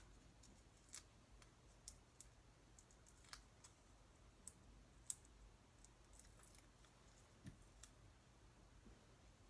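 Faint small clicks and ticks, scattered and irregular, from hands peeling foam adhesive dimensionals off their sheet and handling a paper cut-out; otherwise near silence.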